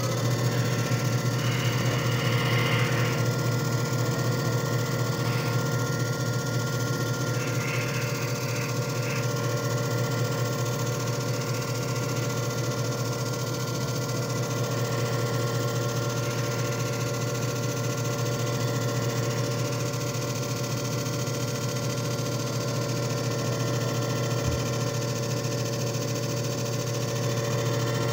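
JFJ Easy Pro disc repair machine running its two-minute repair cycle: the motor turning the disc gives a steady hum with a constant whine over it.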